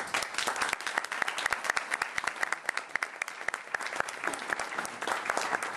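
Audience applauding, dense irregular clapping that starts at once and eases off near the end.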